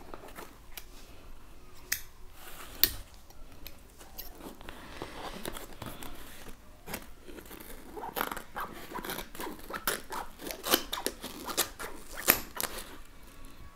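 Scissors snipping and scraping as they cut open the taped seam of a cardboard shipping box: a run of sharp clicks, coming quicker and louder in the second half.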